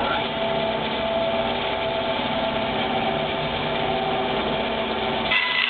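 Electric power tool motor running at a steady pitch while cutting a wood ring; its sound shifts, losing its lower part, near the end.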